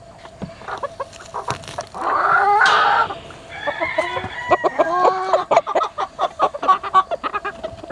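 Chickens clucking, with a rooster crowing once: one loud call of about a second, about two seconds in, followed by a run of short, rising and falling clucks.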